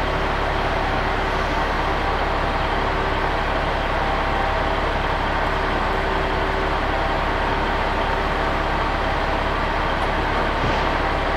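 Heavy diesel engine idling steadily, an unbroken hum with a few steady tones.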